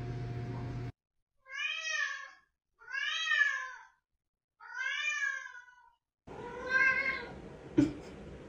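Domestic cat meowing four times: three separate drawn-out meows, each rising then falling in pitch, then a fourth over room noise, followed by a sharp knock near the end.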